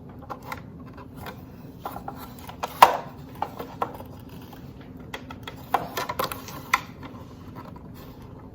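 Plastic clicks and knocks of a water filter cartridge being pushed and seated into an espresso machine's plastic water tank, the sharpest knock about three seconds in and a quick run of clicks a few seconds later.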